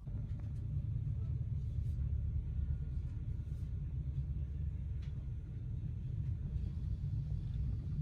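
A steady low rumble that starts abruptly and holds at an even level.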